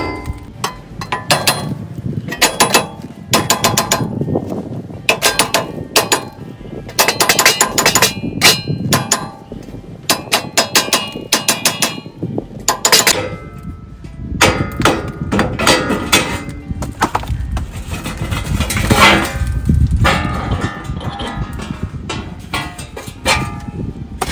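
Hammer blows on a Lexus GX front hub-and-bearing assembly, knocking it around its edge to free it from the steering knuckle: repeated sharp metallic clangs with a ringing tail, in irregular runs of several strikes.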